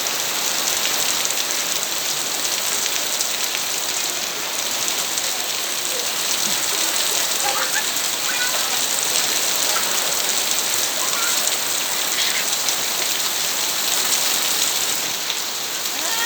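Heavy rain falling steadily, a dense even hiss of rain hitting the ground and surfaces.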